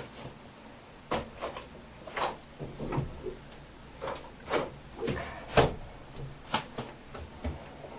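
Scattered short knocks and clacks of things being handled and set down, about a dozen of them at uneven intervals, with cupboard or door knocks among them.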